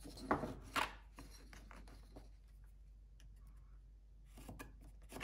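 Pencil and small plastic ruler working on a wooden carving blank: two sharp light knocks in the first second, faint pencil scratching, then a few quick clicks near the end as the ruler and blank are handled.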